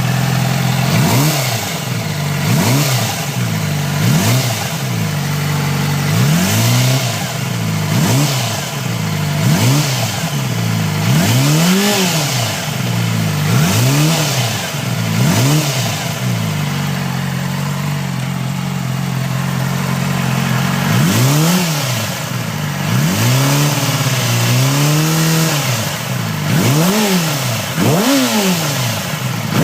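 2007 Yamaha R6's inline-four engine idling and being blipped over and over, the revs rising and falling every second or two, with a steady idle for several seconds a little past the middle. The engine has a knock whose cause the owner cannot find.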